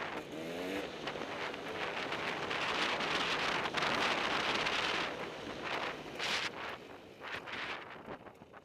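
Wind buffeting a helmet-camera microphone while riding a two-stroke enduro dirt bike. The engine is heard revving up with a rising pitch in the first second, then is mostly buried in the wind rush, which dies down over the last couple of seconds as the bike slows.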